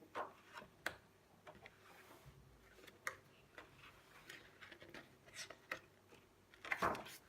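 Scrapbooking paper pads and their packaging being handled, giving soft irregular taps and rustles, with a louder clatter near the end.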